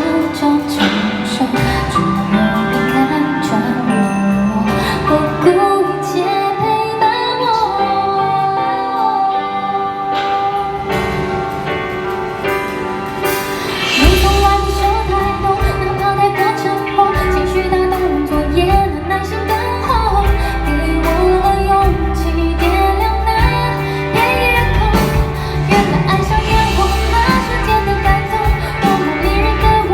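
A female singer performs a pop ballad live with her band accompanying her. About fourteen seconds in, the bass and a fuller band come in and the music grows louder.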